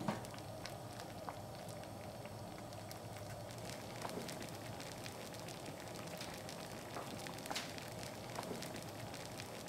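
Thick red bean soup with knife-cut noodles boiling in a pot: large bubbles rising and breaking at the surface with irregular soft pops over a faint steady bubbling.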